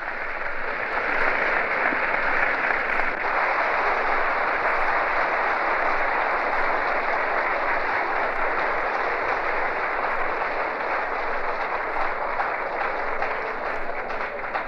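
Audience applauding, a dense, steady clapping that thins toward the end.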